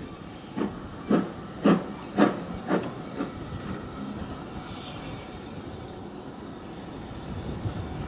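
Steam locomotive pulling a train of coaches away: about six sharp exhaust beats, roughly two a second, fading out after about three seconds, then a steady noise of the train moving off.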